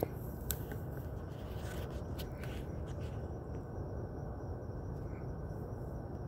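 Steady low outdoor background noise, with a few brief rustles and clicks in the first three seconds; no barking.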